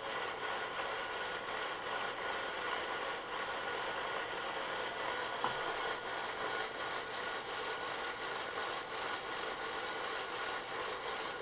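Metal fidget spinners whirring steadily on their bearings as they spin on a wooden desk, the spinning vibrating against the wood, with thin steady high tones. A single faint tick about halfway through.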